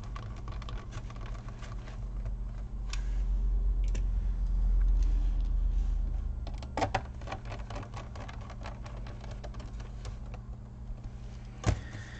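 Small clicks and taps of hands working on an opened laptop's plastic case, with a low rumble that swells for a few seconds in the middle.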